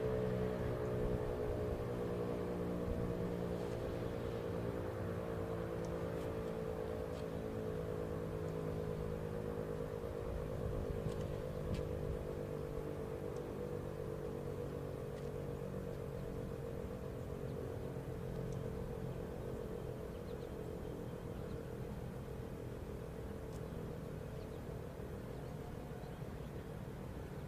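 RSH-10 Thunderbeam outdoor warning siren winding down, its chord of tones slowly sliding lower in pitch and fading, over a steady low hum.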